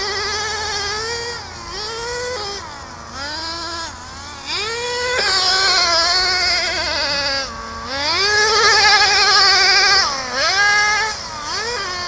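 Small nitro RC car engine revving up and down under throttle, a high-pitched wavering whine that rises in pitch with each burst. It is loudest and highest in the middle, with several quick blips near the end.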